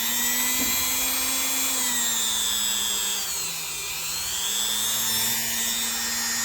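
Small electric power tool spinning a polishing pad, with a steady motor whine. The pitch sags about three and a half seconds in and then climbs back up, as the pad is pressed against the work.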